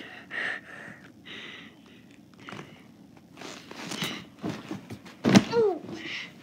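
Soft thumps and fabric rustling from a boy punching a plush teddy bear and pillows, with one sharper hit about five seconds in, followed by a short sound that falls in pitch.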